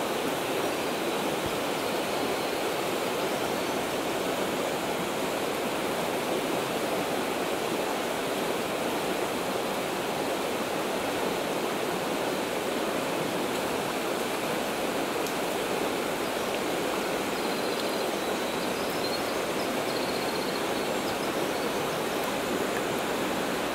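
Rocky trout stream rushing steadily through whitewater riffles and pocket water.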